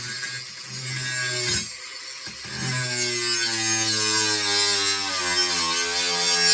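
Angle grinder cutting metal rod: a high grinding hiss over the motor's hum, which breaks off briefly about two seconds in. After the cut resumes, the motor's pitch sinks slowly as it slows under the load.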